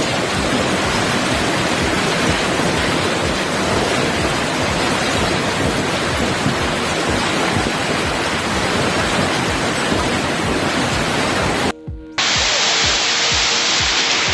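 Heavy storm downpour pelting down hard, a loud dense hiss with a constant patter of impacts. About twelve seconds in it drops out briefly and a brighter recording of the same downpour takes over.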